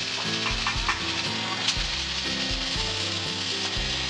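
Background music with a bass line moving in short steady notes, over a constant hiss.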